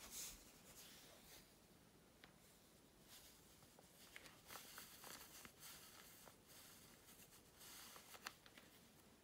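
Faint rustling and crinkling of a shiny PVC mini skirt as a hand brushes and smooths it, coming in uneven bursts with a few small sharp ticks.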